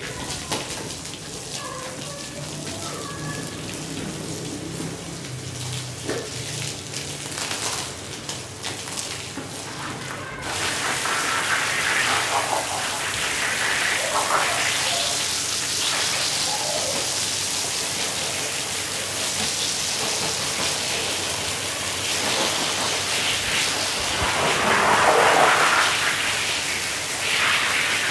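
Water spraying and splashing onto a wet rug being washed, a dense hiss that sets in about ten seconds in and carries on steadily.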